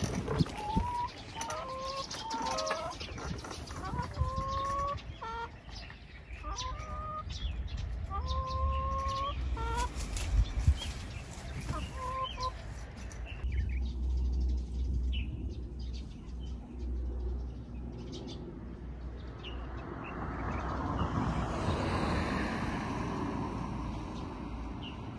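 A bird calling repeatedly in short, even, pitched notes for about the first half. After that comes a steady low rumble and a broad noise that swells and fades near the end.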